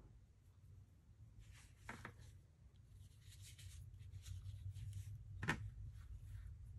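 Hands handling embroidery threads and their spools: soft rustling, with two light clicks a few seconds apart.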